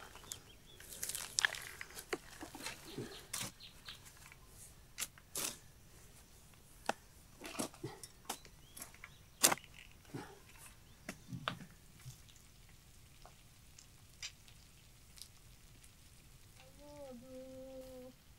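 Irregular sharp clicks and knocks, coming thick for the first twelve seconds or so, then thinning out. Near the end a voice starts humming a held note.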